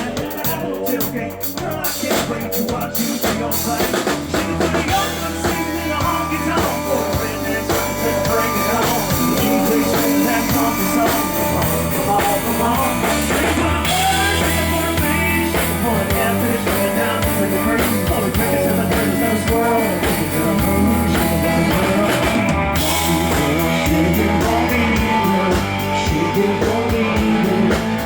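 A live country-rock band playing an instrumental stretch, with drum kit, electric guitar and bass; the bass and drums grow fuller a few seconds in.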